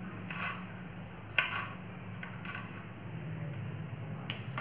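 A knife knocking a few times on a cutting board as fresh coriander is chopped, the loudest knock about a second and a half in, over a steady low background hum.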